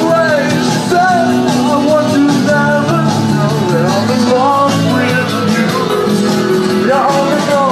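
Live band playing rock and roll: steady low bass notes under a sliding, wavering melody line.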